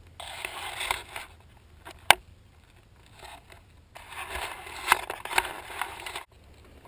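Action camera being handled: two spells of rubbing and scraping against the camera body, with a single sharp click about two seconds in.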